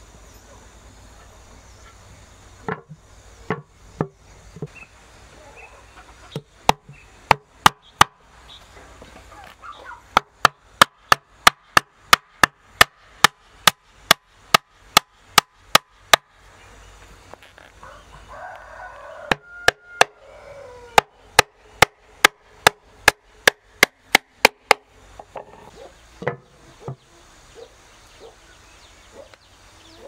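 Hammer driving nails into a wooden board lid on top of a hollow log section. Sharp, even blows come in runs of about two a second, with short pauses between the runs.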